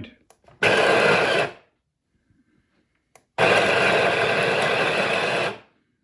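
Wilfa Svart electric burr coffee grinder grinding coffee beans on its finest setting, running twice: a short run of about a second, then, after a pause of nearly two seconds, a run of about two seconds. Both runs are well short of the 10 seconds set on the timer.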